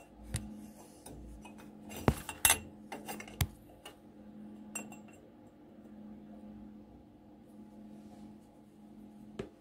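Stainless steel exhaust pipe clinking and knocking against metal as it is handled and set in position, several sharp clinks in the first few seconds and one more near the end. A steady low electrical hum runs underneath.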